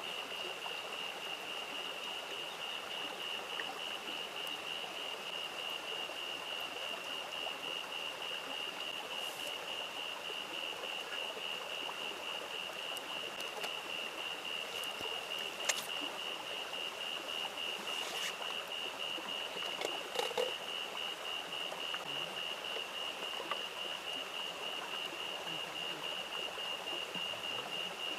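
A stream running steadily, with a continuous high-pitched trilling tone over it. A few faint clicks come about two-thirds of the way through.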